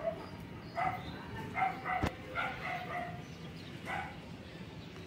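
A dog barking several times, in short separate barks about a second apart, with a single sharp knock about two seconds in.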